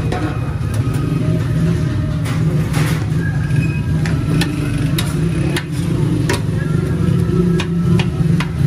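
Chicken malai boti sizzling on a steel griddle as a cook turns it with a metal spatula, the spatula clicking and scraping against the steel in scattered strokes. A loud steady low hum runs underneath.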